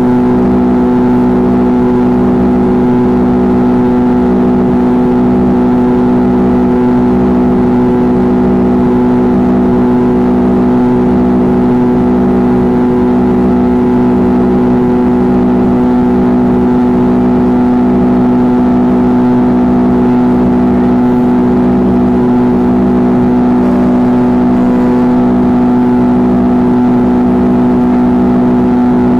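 Rear-mounted Pratt & Whitney JT8D-219 turbofan engines of an MD-83 running steadily in climb, heard inside the cabin beside the engine. The sound is a strong, even hum with a few fixed higher tones over a low rumble.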